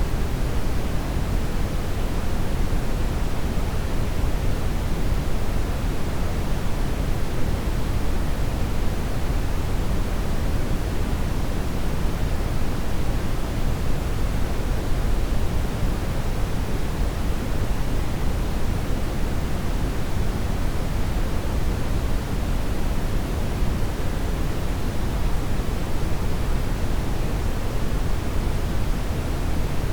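Steady brown noise: an even, unchanging hiss weighted heavily toward the low end.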